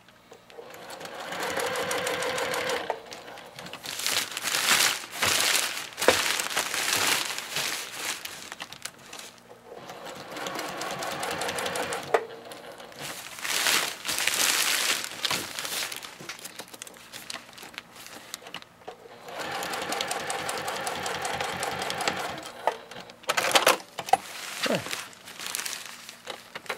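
Juki sewing machine stitching a box stitch in several short runs, stopping and starting as the work is pivoted. Between the runs, the silpoly tarp fabric crinkles as it is shifted and turned under the needle.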